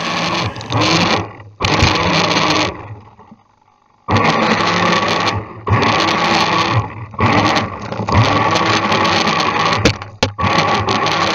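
High-speed RC boat's motor whining, with water hissing and splashing, heard from a camera mounted on the boat. The sound cuts out sharply several times and drops to near silence for about a second around the middle before coming back at full strength.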